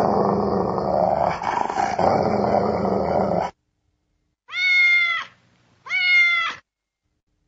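An animal growl that lasts about three and a half seconds and stops abruptly, then two separate cat meows a second apart.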